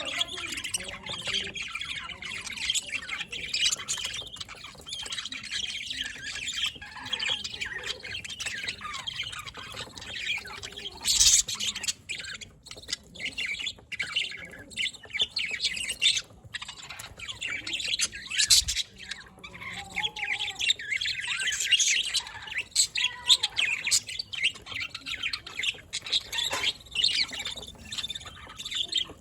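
A flock of budgerigars chattering and chirping continuously, a busy warbling mix of short high chirps with a few sharper, louder calls.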